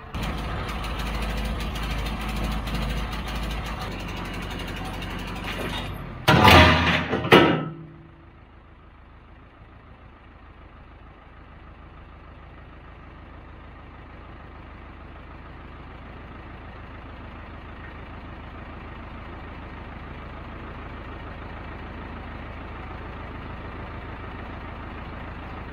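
Skid steer's engine running hard under load with a strong low rumble. About six seconds in there is a loud, harsh burst lasting over a second, and after that the engine settles to a quieter, steady running.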